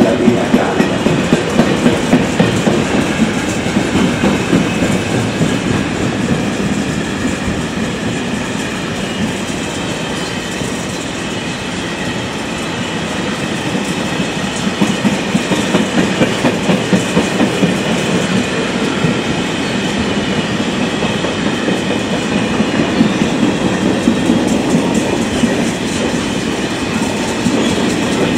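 A long train rolling past on the track, its wheels clattering over the rail joints. The clatter is sharpest near the start and again near the end, and smoother in between.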